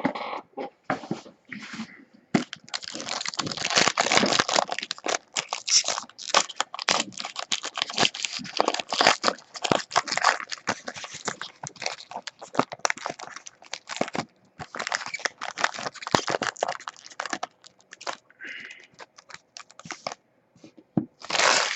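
Trading-card pack wrapper being torn open and crinkled, with cards handled. There is a long stretch of dense crackling, then sparser rustles, and a short loud crinkle near the end.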